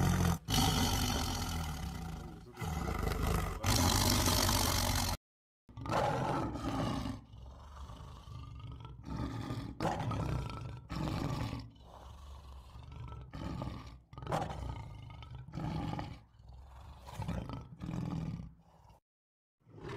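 A tiger roars and growls loudly and continuously for about five seconds. After a brief cut, a male lion roars in a series of separate grunting calls about a second apart.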